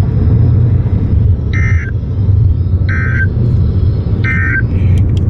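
Emergency Alert System end-of-message tones from a weather radio: three short, buzzy two-tone digital data bursts, each under half a second and about a second apart, closing the severe thunderstorm warning. A steady low rumble of a car cabin runs underneath.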